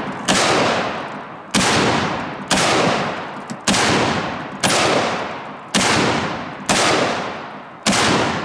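Eight shots from big-bore Smith & Wesson .460 and .500 Magnum double-action revolvers, about one a second, each with a long echoing tail.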